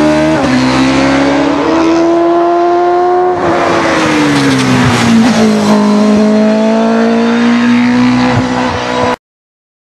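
Competition engine running hard at high revs, its pitch climbing slowly, dropping twice and holding high again, then cutting off suddenly about nine seconds in.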